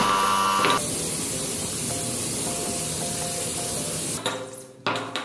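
An electric pressure washer's motor buzzes as its foam lance sprays. After about a second the buzz stops and a steady hiss of spraying carries on, breaking off about four seconds in.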